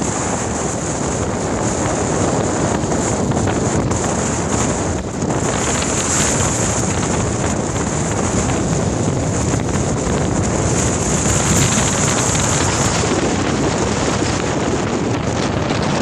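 Strong gusting wind buffeting the microphone, a loud, steady rushing rumble, over choppy lake water with whitecaps.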